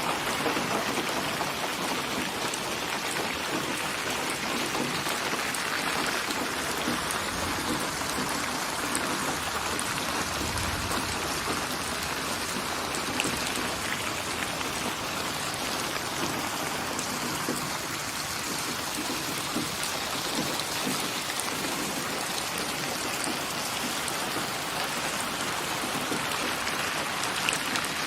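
Steady rain falling: a dense even hiss with scattered sharp drop ticks, and a brief low rumble about ten seconds in.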